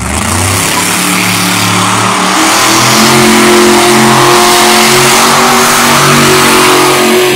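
Monster truck engine revving hard: the pitch climbs over the first couple of seconds, holds at high revs with small surges, then falls off sharply near the end as the driver lifts.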